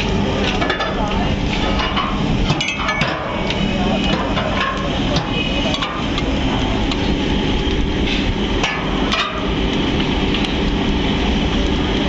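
Steady din of a steaming dye vat and running machinery, with repeated sharp metallic knocks and clinks as a steel pipe lever is worked on the vat's winch reel.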